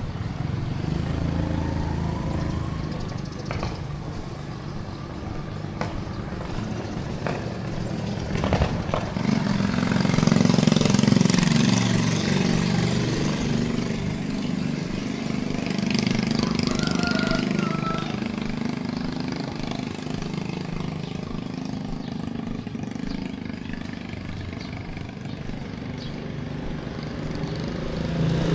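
Street traffic: engines running and passing by, loudest about ten seconds in, with a few sharp knocks in the first third.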